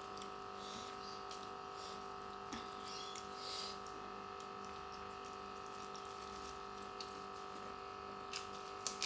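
Quiet sounds of eating with the fingers, hand squishing rice and sambal and soft chewing, over a steady humming tone. A few sharp clicks come near the end.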